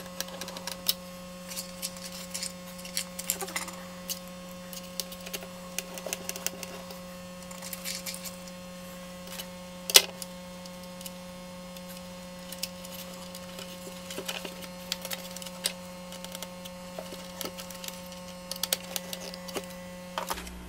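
Scattered small clicks and taps of a screwdriver, wires and plastic parts being handled inside an opened portable turntable's plastic case, with one sharp knock about halfway through. A steady low hum runs underneath.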